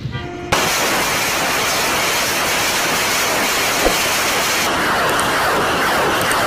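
Loud steady rushing noise, a vehicle sound effect, starting abruptly about half a second in.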